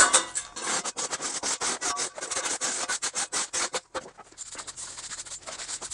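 Flat shovel scraping and scooping broken Durarock and mortar rubble off a concrete slab: a quick run of gritty scrapes, easing to softer scraping about four seconds in.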